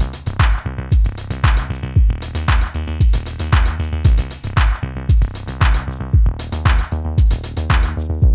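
Electronic background music with a steady drum-machine beat and bass.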